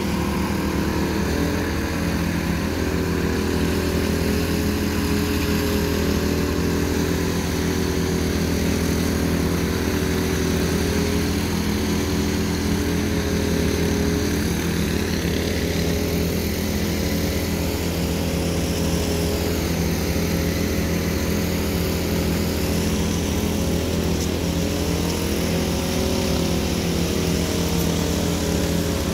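An engine running steadily at a constant speed, an even drone with no breaks and no change in level.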